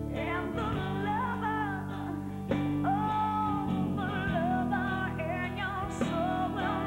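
A song: a voice sings a melody over instrumental backing.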